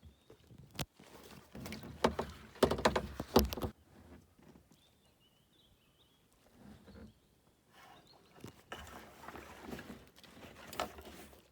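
Kayak paddling: paddle strokes splashing in the water, with sharp knocks. The strokes come in two bouts, a louder one early and a second near the end, with a quiet lull between.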